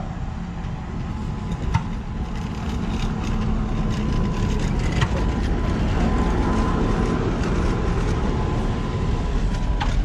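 Tram passing along the track, steel wheels running on the rails with a few sharp clicks and a thin steady whine. The running noise grows louder about three seconds in.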